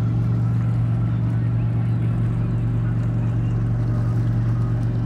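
Motorboat engine running steadily at speed: a constant low drone that holds the same pitch throughout.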